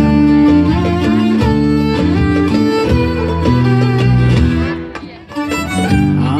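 Live band playing an instrumental passage between sung lines: a violin over an acoustic guitar. The music briefly drops away about five seconds in, then comes back.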